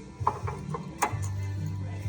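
Country music playing in the background, with a few sharp metallic clicks and knocks as brake pads are worked into a caliper.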